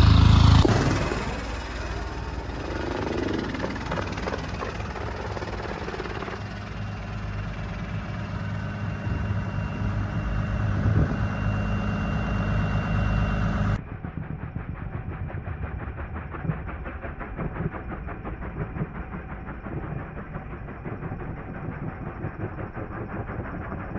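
Westland AW159 Wildcat helicopter heard in flight: steady rotor and turbine engine noise, loudest at the very start. About two-thirds of the way through it changes abruptly to a quieter, thinner sound with a fast, even pulsing of the rotor blades.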